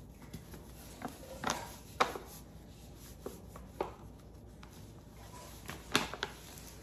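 Scattered sharp kitchen knocks and taps, about six in all, of utensils and containers being handled at the counter; the loudest come about two seconds in and again near the end.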